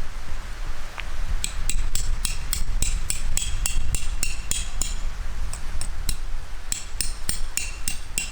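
A hammer driving metal tent pegs: sharp ringing metal-on-metal blows, about three a second, in two runs with a short pause in between.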